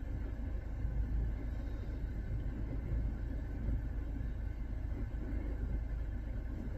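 Steady low rumble inside a car's cabin, with no break or change.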